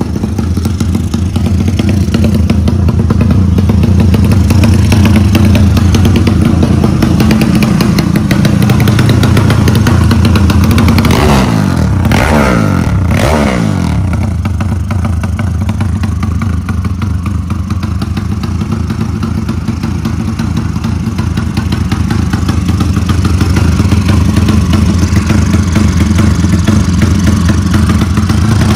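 Loud motorcycle engine running through an open racing exhaust, steady for most of the time, with its pitch falling twice in quick succession around the middle.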